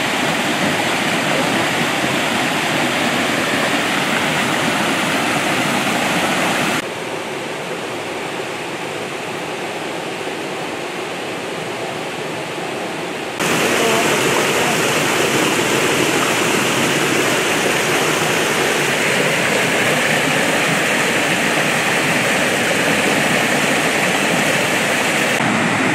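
Creek water running over rocks: a steady rush of flowing water. It drops abruptly to a quieter level about seven seconds in and comes back just as abruptly about thirteen seconds in.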